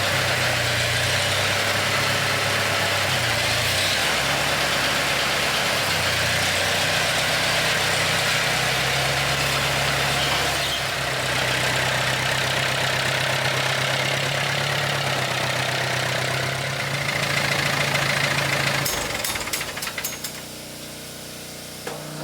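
Tractor engine running steadily at low speed, its pitch shifting up and down a few times. Near the end the engine note stops and the sound drops away.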